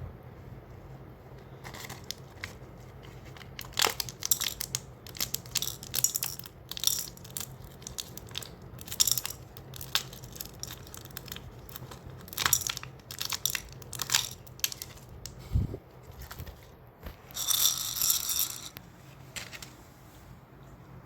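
Plastic candy wrapper crinkling and tearing in irregular crackly bursts, with a longer stretch of tearing near the end.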